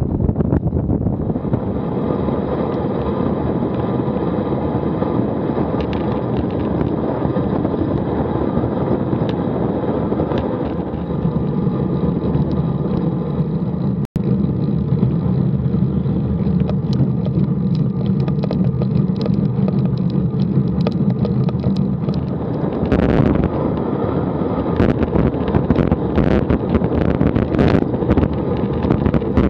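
Wind rushing over an action camera's microphone, with tyre and road noise, as a road bicycle rides at about 20 to 30 mph. Sharper knocks and rattles come through near the end.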